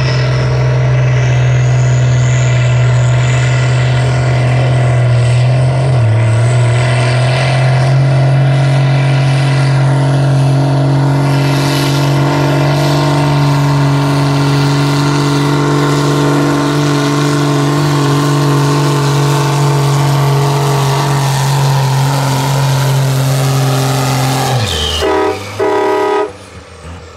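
Case IH MX150 tractor's diesel engine running flat out under heavy load as it drags a weight-transfer sled, holding a steady pitch with a brief dip about six seconds in. Near the end the engine is abruptly throttled back and drops away as the pull ends.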